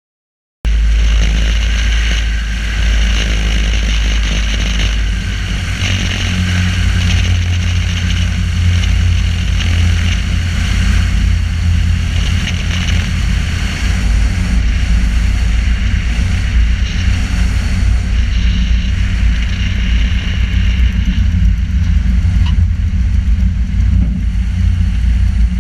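Cessna 150's four-cylinder Continental O-200 engine and propeller running steadily, mixed with heavy wind rush on a wing-mounted camera; the sound cuts in abruptly about half a second in.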